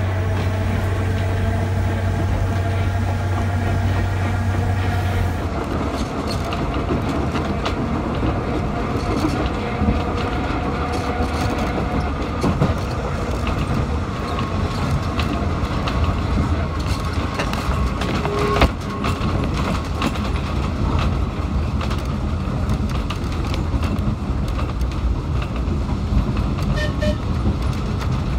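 Manx Electric Railway tram running along its track, heard from on board: a steady rumble with light clicks of the wheels over the rails and one sharp knock a little past halfway. A steady hum during the first five seconds cuts off suddenly.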